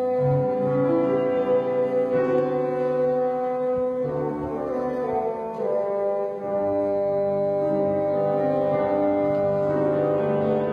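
Bassoon playing a slow melody of long held notes, with accompaniment sounding other notes at the same time.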